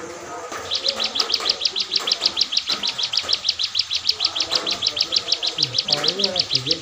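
Ciblek songbird singing hard: a fast, steady trill of high, evenly repeated notes, about ten a second, starting just under a second in.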